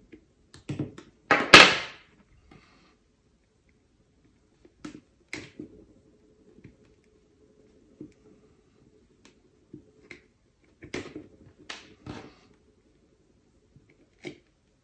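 Small metal tools, a pin and pliers, clicking and scraping against a detector's plastic control-knob housing while prising out a small rubber O-ring. There is one loud, sharp clatter about a second and a half in, then scattered lighter clicks over a faint steady hum.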